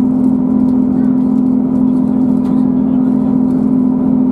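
Class 158 diesel multiple unit on the move, heard from inside the passenger car: the underfloor diesel engine's steady, noisy drone with a strong constant hum, over the train's running noise.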